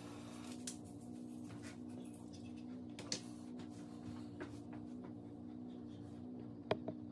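Quiet room tone with a steady low hum and a few faint, scattered clicks.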